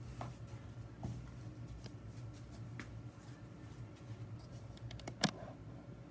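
Quiet room tone: a steady low hum with scattered faint ticks, and one sharp click about five seconds in.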